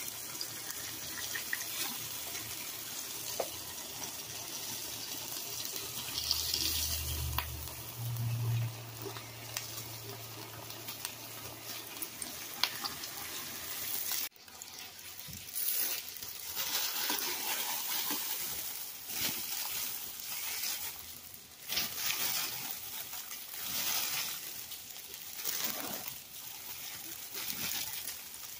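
Hamburger patties sizzling in their rendered fat on a griddle, a steady hiss. About halfway it breaks off suddenly and returns uneven, swelling and fading.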